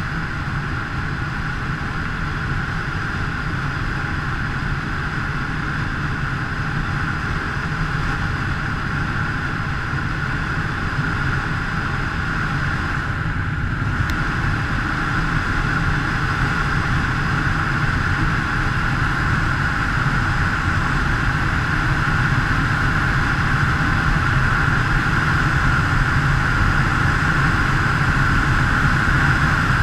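Honda CBR125 motorcycle's 125 cc single-cylinder engine running at road speed with a steady rush of wind, growing slowly louder over the stretch.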